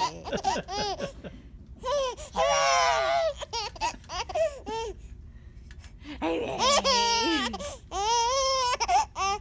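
A baby giggling and laughing in bursts of short calls, with two longer laughing fits, one about two seconds in and another from about six and a half seconds in.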